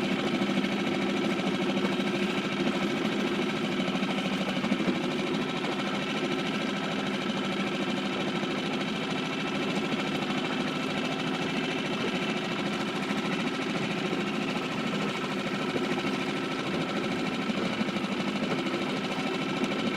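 Small outboard motor running at a steady speed, pushing an inflatable dinghy, with an even hum and no changes in pitch.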